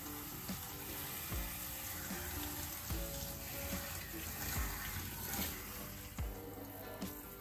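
Tap water running and splashing into a stainless-steel sink as a scrubber is rinsed under the stream, over background music with a steady beat.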